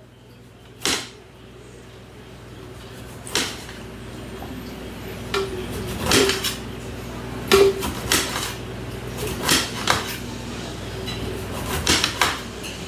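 Kitchen knife slicing thin rounds on a cutting board: about a dozen sharp knocks of the blade against the board, irregularly spaced, some in quick pairs.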